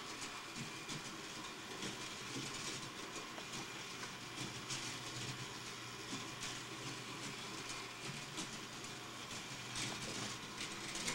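Toy train running on a plastic track: a steady faint whir with light scattered clicking from the wheels and track.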